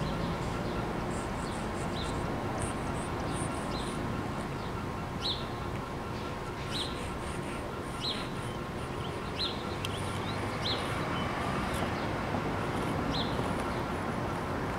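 A small bird chirping, short high notes repeating every second or so, over a steady background hum.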